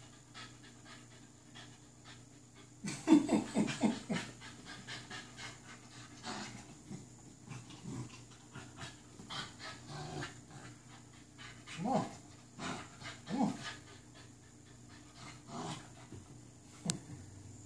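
American Bully puppy panting steadily while tugging on a toy, with a loud burst of growling about three seconds in and two short growls later on. A sharp click near the end.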